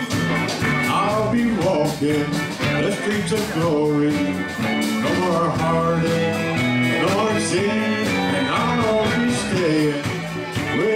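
Live country band playing an instrumental western swing number, a guitar leading over the band's rhythm and drums.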